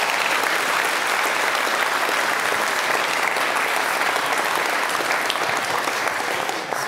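Audience applauding steadily, a dense even clatter of many hands clapping, cut off abruptly at the end.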